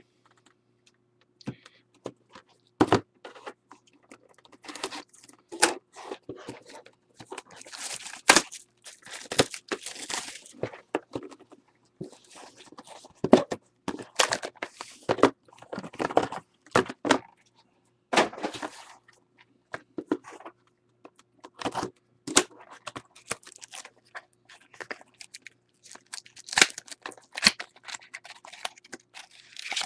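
Plastic-wrapped trading card packs and their cardboard box being handled and unwrapped: irregular crinkling and tearing of the plastic wrap, with sharp clicks and taps throughout.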